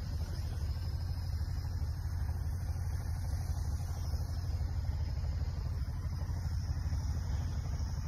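A heavy diesel engine idling with a steady low rumble.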